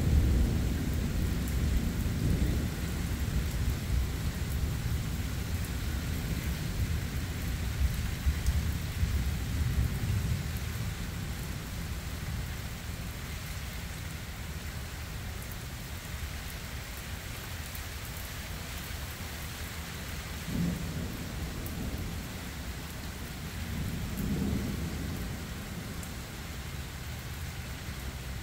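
Thunder rumbling over steady heavy rain, the rumble rolling off and fading over the first ten seconds or so. Two fainter low rumbles swell up later while the rain keeps falling.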